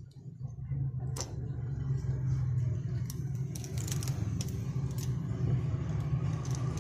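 Sharp clicks and light crackles of a metal tool and plastic pry picks working under the cracked back glass of a Huawei Honor 9 Lite as it is pried off. There is one strong click about a second in and a cluster of smaller ones in the middle, over a steady low hum.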